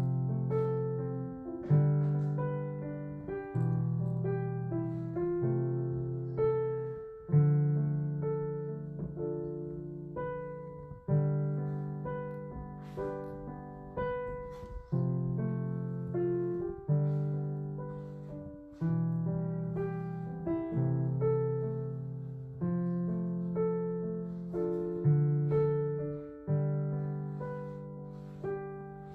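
Background solo piano music: chords and melody notes struck every second or two and left to ring out.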